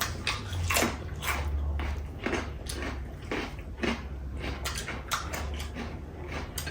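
Eating sounds from a meal of chicken biryani: irregular chewing, mouth smacks and small clicks, more than a dozen short sounds, over a low steady hum.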